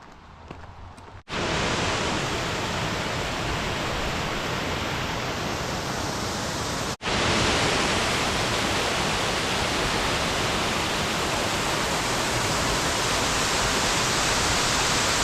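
Sahale Falls pouring: a loud, steady rushing of falling water that cuts in abruptly about a second in, breaks off for an instant about seven seconds in, then comes back a little louder.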